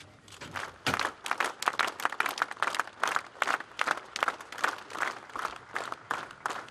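A crowd of people clapping, the applause swelling about a second in and continuing unevenly.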